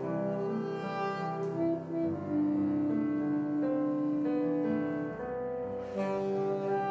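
Background music: a slow melody of long held notes over sustained chords.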